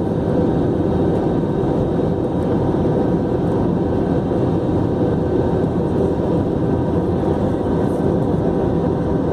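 Steady in-flight noise of an Airbus A320-family airliner heard from the passenger cabin: an even rumble of engines and rushing air with a few faint steady tones, unchanging throughout.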